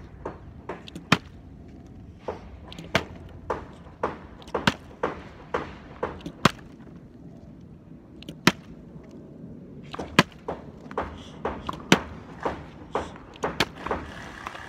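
Partly filled plastic water bottle being flipped again and again and landing on the hard ground: a quick, uneven run of sharp knocks, about two a second, some louder than others.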